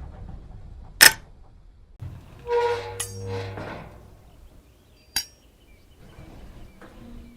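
Metal door latch clicking: a sharp click about a second in, a longer metallic clatter with ringing tones a second later, then another sharp click about five seconds in.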